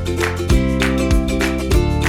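Upbeat background music with a steady beat, led by plucked guitar strumming over a bass line.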